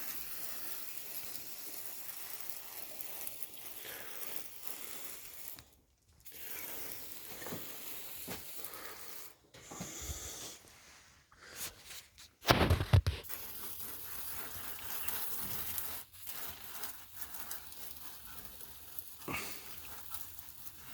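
Degreaser being sprayed onto an engine block: a steady hissing spray in several long stretches, broken by short pauses, with one thump about halfway through.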